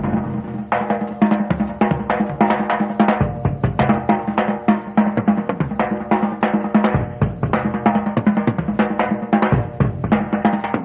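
Rock drum kit played solo in a live concert: rapid snare and tom strokes and rolls over the bass drum, many hits a second.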